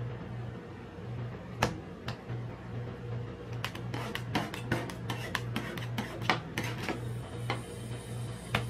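Metal spatulas scraping and tapping on the steel cold plate of a rolled-ice-cream pan as they chop, gather and spread a mass of ice cream, with a quick run of sharp taps in the middle. A low, evenly pulsing hum runs underneath.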